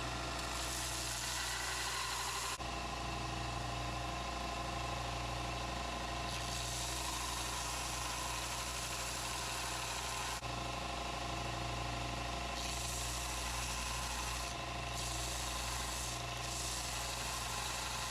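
Belt sander running with a steady hum, with stretches of hissing grind as the steel knife blank is pressed against the belt to sand it flat; the grinding hiss drops out and comes back several times.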